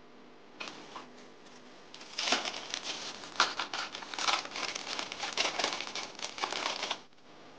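A thin wrapping sheet crinkling and rustling in a dense run of crackles as a chilled sheet of pastry dough is peeled off it and handled. It starts softly, grows loud about two seconds in, and stops shortly before the end.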